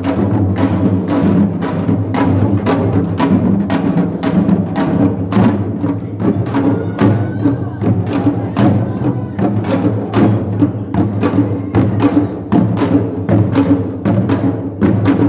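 Korean farmers' percussion band (pungmul) playing a steady driving beat, with sharp strokes about three a second over a sustained low ringing.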